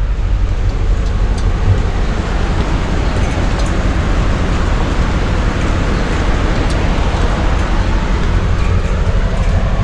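Steady rain falling, an even hiss with a few faint ticks of drops.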